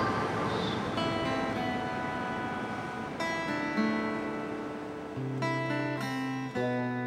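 Acoustic guitar music: plucked notes ringing over one another, joined by a low sustained bass note about five seconds in.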